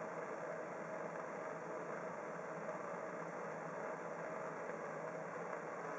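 Bunsen burner flame burning with a steady, even rushing noise.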